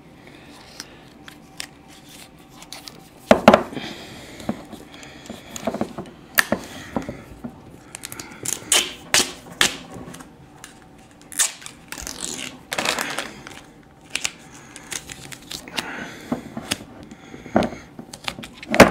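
Duct tape being pulled off the roll and torn while a lighter is taped onto an aerosol can: irregular short rips and crinkles, with clicks and knocks of the can and lighter being handled.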